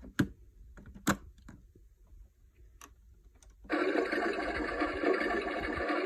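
Two sharp plastic clicks as the door of a Keenway My Home toy washing machine is shut and the machine is switched on. About two-thirds in, its wash cycle starts suddenly with a loud, steady electronic washing sound effect from its small speaker.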